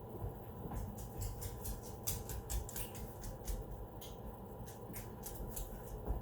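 Irregular small clicks and rustles of something being handled, several a second, over a faint steady background hum.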